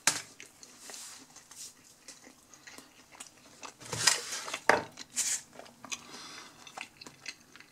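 A person chewing pizza close to the microphone, with a cluster of louder crunches about four to five seconds in.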